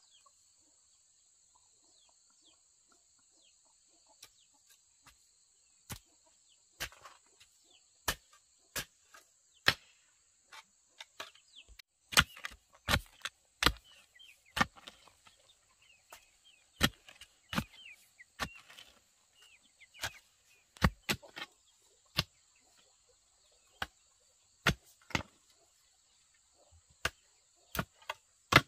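Sharp knocks, one or two a second, like a blade striking wood or bamboo, beginning about six seconds in, over a steady high buzz of insects.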